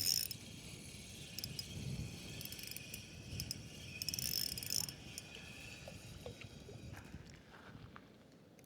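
Spinning reel being cranked to retrieve the lure, giving a fine, fast high-pitched ticking rasp in two main spells, about a second and a half in and around four seconds in. This is the reel's noise on the retrieve, which the owner traces to the line roller rubbing against its bracket.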